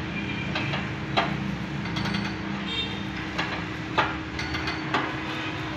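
Scattered sharp metal clanks and clicks, about five over a few seconds, from the steel frame and linkage of a tractor-mounted tine cultivator as its lever is worked by hand, over a steady hum.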